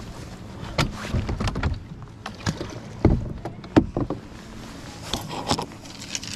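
Irregular thumps and clatters of footsteps and gear being handled on a bass boat's carpeted deck, with no motor running.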